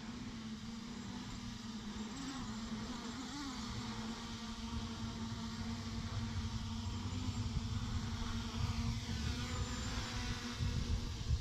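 Motorcycle engine running at a steady pitch, which rises briefly twice, about two and three and a half seconds in. It sits over heavy, uneven low rumble of wind on the microphone.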